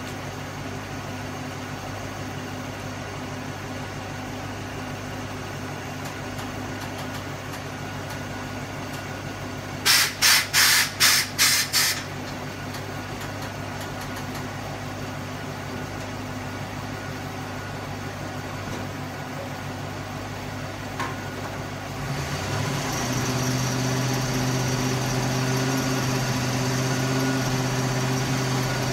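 Ford FE big-block V8 idling steadily. About ten seconds in come seven short, sharp blasts of air hiss in quick succession, typical of air-suspension valves being switched. Near the end the engine note steps up and stays louder, with a steady hiss on top.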